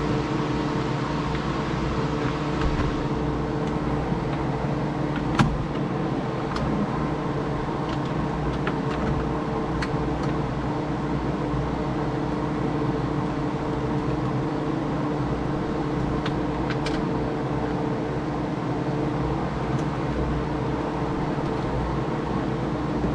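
Steady mechanical hum with two constant tones, and scattered light clicks with one sharper knock about five seconds in, from hand work fastening the radio in with screws.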